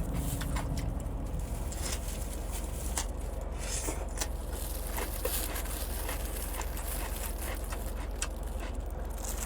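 Quiet eating sounds: faint chewing with scattered small clicks and rustles, over a steady low hum.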